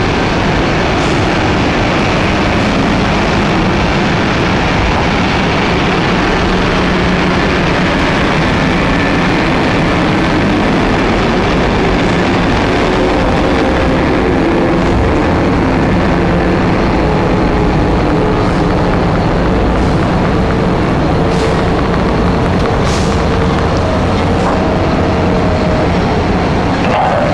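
Heavy diesel mining machinery running steadily, a continuous loud engine drone with no pauses or impacts.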